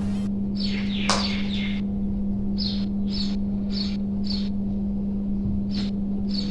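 Birds chirping in short, high, falling calls that repeat about twice a second, over a steady low hum and a faint hiss.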